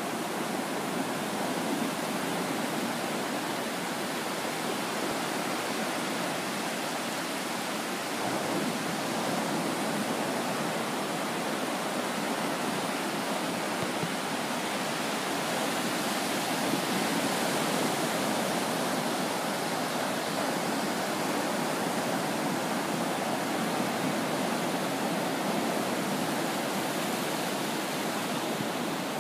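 Ocean surf: small waves breaking and washing onto a flat sandy beach, a steady rushing hiss that swells slightly now and then.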